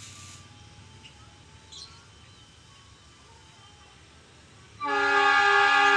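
The KA Lodaya's diesel locomotive sounds its air horn as a train signal (semboyan). A loud, steady multi-note blast starts suddenly about five seconds in, after quiet trackside background.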